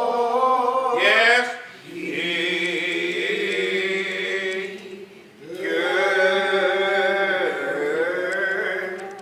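Slow singing without accompaniment, in long drawn-out notes that bend slowly in pitch, sung in three phrases with brief pauses between them.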